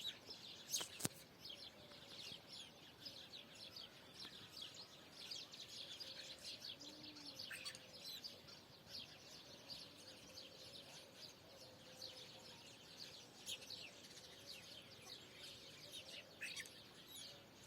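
Faint chorus of small birds chirping, many short high calls throughout, with a single light knock about a second in.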